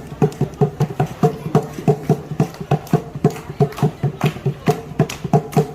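Hand drum beaten in a steady marching rhythm, about three to four pitched strokes a second, some accented louder than others.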